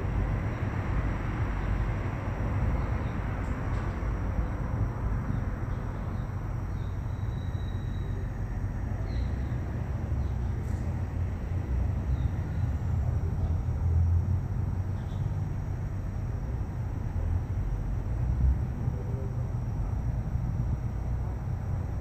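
Steady outdoor background noise, a low rumble and hiss, with a few faint short high chirps.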